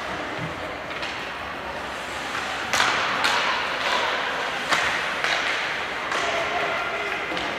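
Ice hockey play in an arena: a series of sharp clacks of sticks and puck on the ice and boards, starting about three seconds in, over a steady hiss of arena noise.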